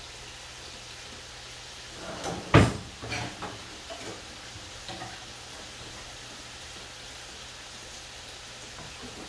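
Kitchen clatter: one sharp, loud knock about two and a half seconds in, followed by several lighter clicks and knocks, over a steady low background hum.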